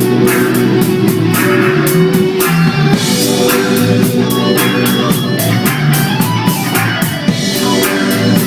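A live band playing at a sound check: guitar over a drum kit with a steady beat.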